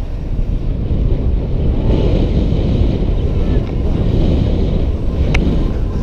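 Wind buffeting a moving BMX rider's camera microphone, mixed with the rumble of bike tyres rolling over the track surface, with a sharp click about five seconds in.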